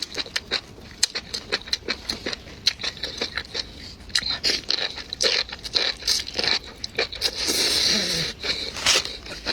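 Close-miked eating sounds: rapid, irregular wet mouth clicks and smacks from chewing, with a longer sucking, slurping stretch about eight seconds in.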